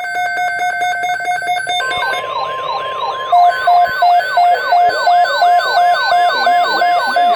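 Layered NOAA Weather Radio emergency alert tones: a buzzy digital SAME header for the first two seconds or so, then the steady 1050 Hz weather radio warning tone. Over it runs a siren sweep rising and falling about three times a second, and from about halfway through, short beeps about twice a second.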